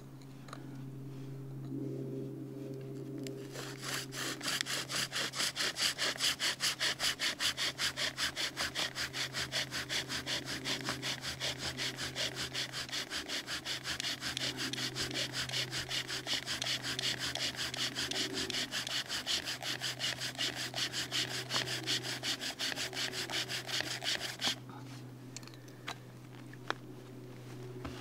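Bow drill in use: a wooden spindle spun fast back and forth by a double-rope bow, grinding in the notch of a wooden hearth board in an even rhythmic rasp. The friction is working up smoke toward an ember. It starts a few seconds in and stops a few seconds before the end.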